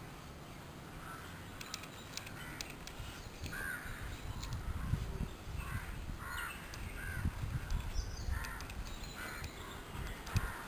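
A crow cawing over and over, short harsh calls about once a second that start a few seconds in, over a low rumble.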